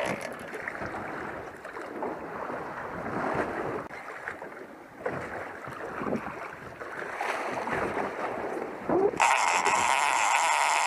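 Wind and sea water slapping and sloshing against a boat's hull on open ocean, with a few short splashes from a hooked blue shark thrashing at the surface alongside. About nine seconds in, a louder steady hiss cuts in abruptly.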